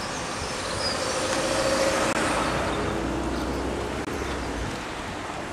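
A motor vehicle driving past on the road: engine and tyre noise swell to their loudest about two seconds in, then fade away.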